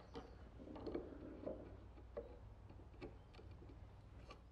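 Faint, irregular small ticks and scrapes of a hand chisel paring out the corners of a hinge mortise in walnut, pushed by hand.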